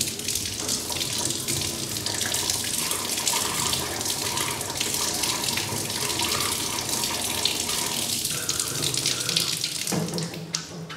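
Water running from a tap into a stainless steel kitchen sink, splashing over hands held under the stream. It is a steady rush that thins out near the end.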